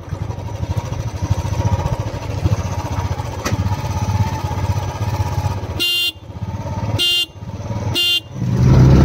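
Yamaha MT-15 and Royal Enfield Bullet 350 motorcycle engines idling at the start line, then three short horn beeps about a second apart as the start signal. Near the end the engines rev up loudly as the bikes launch.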